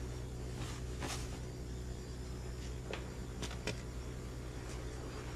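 Low steady background hum with a few faint, short rustles and clicks.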